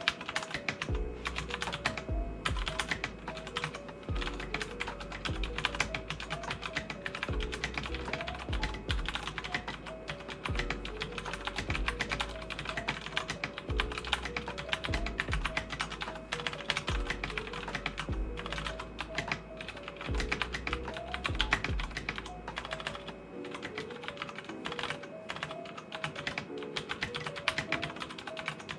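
Continuous fast typing on a CiY X77 tenkeyless mechanical keyboard, modded with case foam, a tape mod, clipped stabilizers, lubed hot-swap switches and better keycaps: a dense, unbroken run of keystrokes. Background music with a bass line plays underneath, and the bass drops out about five seconds before the end.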